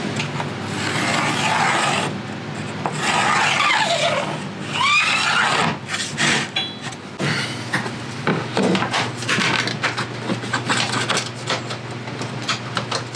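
A tool drawn along a sheet of quarter-inch plywood in three long scraping strokes, followed by a run of light taps and clicks.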